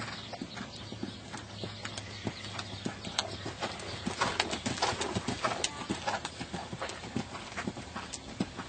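Hoofbeats of a ridden mare cantering on an arena's dirt footing: a running series of dull thuds, thickest around the middle.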